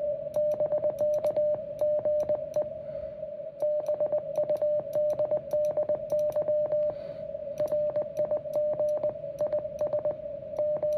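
Morse code sidetone from a QRP Labs QMX+ transceiver, sent by hand in irregular groups of dots and dashes with a paddle. Each element comes with a small click from the paddle, and a steady tone at about the same pitch runs underneath.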